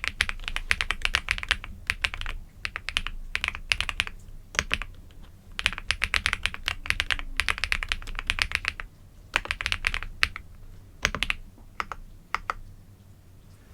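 Typing on a computer keyboard: quick runs of key clicks in bursts with short pauses, thinning out and stopping about a second before the end.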